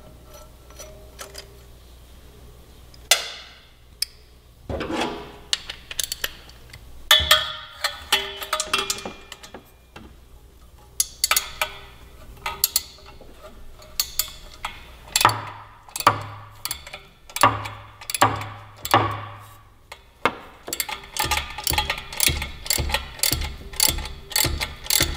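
Socket ratchet clicking in short runs on a 12 mm deep-well socket and wobble extension as the exhaust header flange nuts are loosened. The clicks come faster and closer together in the last few seconds.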